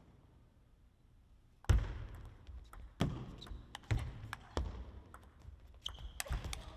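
Celluloid-style plastic table tennis ball cracking off rackets and the table in a rally, a string of sharp clicks roughly a second or less apart, beginning about a second and a half in.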